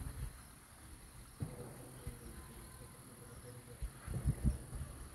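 Steady high-pitched drone of insects in the surrounding forest, with a few low thumps about four seconds in.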